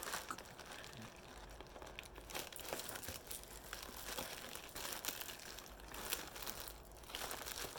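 Packing material crinkling and rustling as it is handled, with scattered small clicks.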